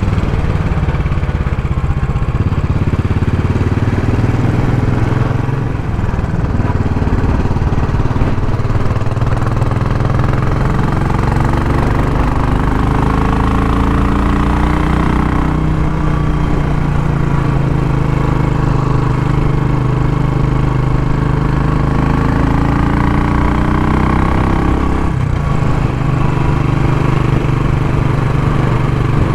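Royal Enfield Classic 500's single-cylinder engine running on the move, its note rising and falling with the throttle, with a brief drop about six seconds in and another near the end.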